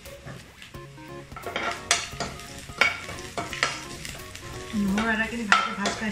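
A steel slotted spatula stirs spices frying in hot oil in a non-stick kadai: a steady sizzle, with repeated scrapes and knocks of the spatula against the pan.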